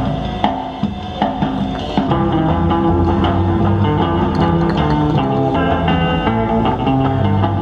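Background music: an electronic pop track with guitar, bass and drums and a steady beat.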